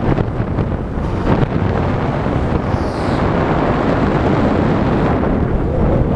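Wind buffeting the microphone of a GoPro action camera on a moving bicycle, a loud steady rush.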